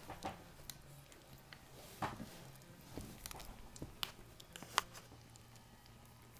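Soft rustling and small smacking clicks of young Havanese puppies squirming against each other on blankets, with a couple of sharper clicks about four and five seconds in, over a faint steady hum.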